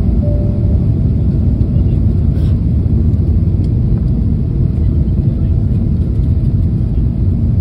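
Steady low rumble of cabin noise inside a Boeing 777-300ER during its descent, from the jet engines and the air rushing past the fuselage.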